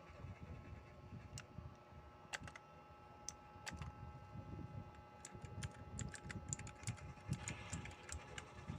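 Typing on a mechanical keyboard with clicky blue switches: faint keystroke clicks, a few at a time at first, coming faster in the second half.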